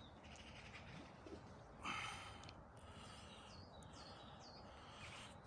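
Quiet outdoor ambience: a steady low hiss, with a brief rustle about two seconds in and a few short bird chirps a little later.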